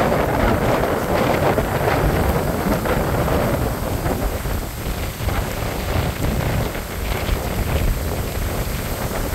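Gusty storm wind buffeting the microphone: a steady, loud rumbling rush that swells and eases with the gusts.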